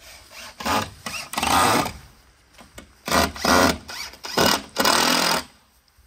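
Cordless drill driving screws into wooden fence boards, in four short runs of about a second each.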